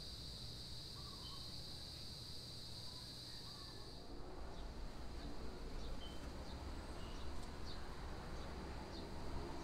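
Outdoor nature ambience: a steady high insect drone for the first four seconds, which stops suddenly. Scattered short, high bird chirps follow over a low rumble.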